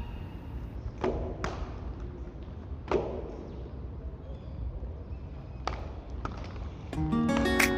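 Inline skates knocking against the ground or a slide bar: four short, sharp knocks spread over several seconds, over a low, steady outdoor background noise.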